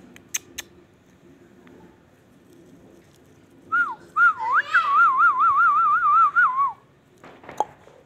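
A short whistle about four seconds in, then a longer clear whistle that warbles rapidly up and down, about five times a second, for roughly two and a half seconds before dropping off. A couple of sharp clicks come just after the start.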